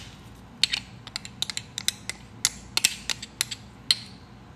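A metal spoon clicking and scraping against a metal tablespoon measure to get thick sweetened condensed milk out of it: many quick, irregular sharp clicks.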